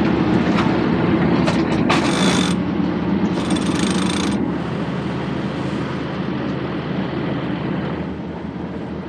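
A sailboat's cockpit sheet winch being cranked to trim in the jib sheet, its pawls clicking in a fast, steady ratchet that eases off in the second half. Two short hissing rasps come about two and three and a half seconds in.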